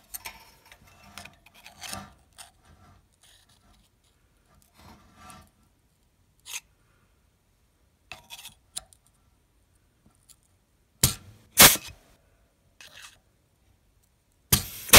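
A thin steel sheet rustling and scraping as it is handled and fitted into the jaws of a pneumatic flange hole punch tool. The tool then fires three times, each stroke a short, sharp snap as it punches a hole through the sheet metal: twice close together about two-thirds in, and once more near the end.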